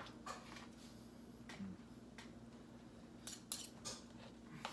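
Metal cutlery clicking and scraping against a plate while food is picked up: a few scattered light clicks, with a quick run of sharper clicks about three seconds in.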